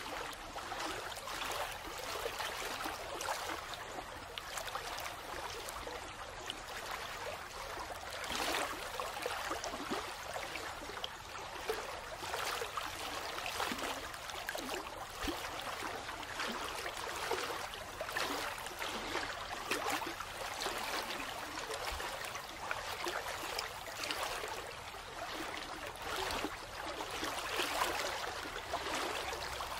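Steady sound of running water, like a trickling stream, with an even, fluttering hiss and no pauses.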